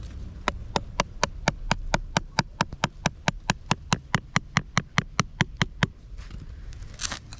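Rapid, evenly spaced sharp taps, about four to five a second for some five seconds, then stopping: a hand digging tool chipping at the hard clay and rock of the bank.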